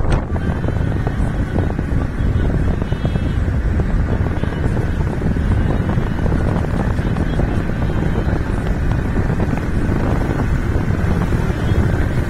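Loud, steady low rumble with wind buffeting the microphone.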